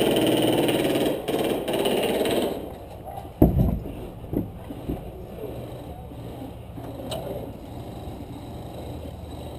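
Airsoft gun firing loud rapid full-auto bursts that stop about two and a half seconds in, then a sharp thump about three and a half seconds in and a few lighter knocks.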